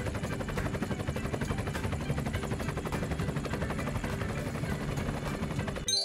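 Helicopter rotor beating in a fast, steady chop as the aircraft flies. A short rising chime starts just at the end.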